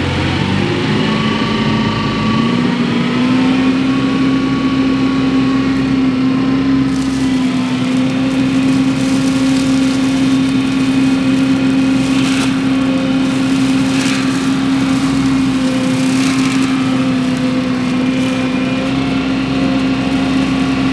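Wacker Neuson SM120 mini skid steer's engine rising in pitch over the first couple of seconds, then running steady at high speed to drive the Baumalight MS530M forestry mulcher head. From about seven seconds in, scattered sharp noises cut through, a few of them near twelve, fourteen and sixteen seconds.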